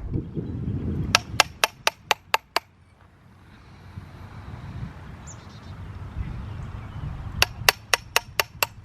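Hammer tapping a steel chisel to dress a limestone block, in two quick runs of sharp ringing blows, about four a second, one run about a second in and another near the end.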